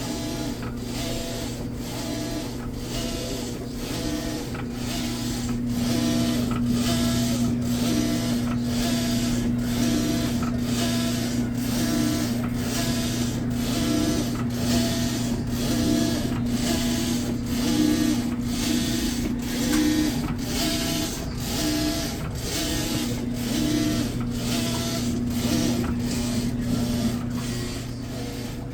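Washing machine running: a steady hum under a regular, repeating mechanical stroke, a little more than once a second.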